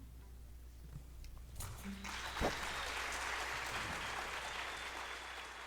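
Audience applauding, starting about two seconds in after a short lull and holding steady before easing slightly near the end.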